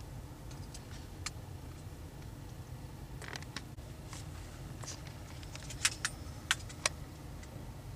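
Quiet inside a parked vehicle: a low steady rumble, with a few small sharp clicks and rattles of handling, the loudest a quick run of them about six to seven seconds in.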